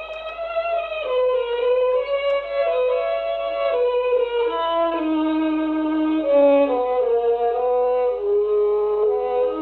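Slow instrumental music: a single melody of long held notes moving step by step.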